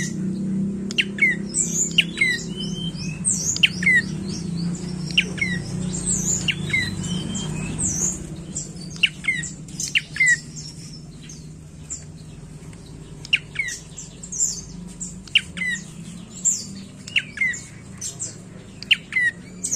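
Caged tailorbird (prenjak coki) calling: a run of short, sharp notes, each sweeping down in pitch, about one a second, with higher chirps between them. A low steady hum sits underneath, louder in the first half.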